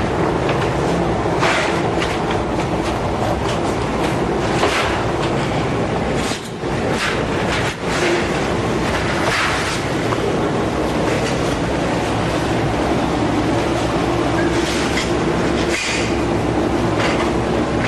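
Large steam cabinet running with a steady rushing steam noise and a low hum, while a wheeled metal rack of trays is rolled in and rattles, with several short metal clanks. This is the loading of raw ba-wan for steaming.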